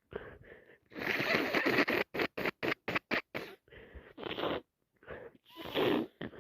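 A person with a heavily congested head cold blowing her nose, a long noisy blast about a second in, followed by a quick run of short sniffs and snorts and a few more near the end.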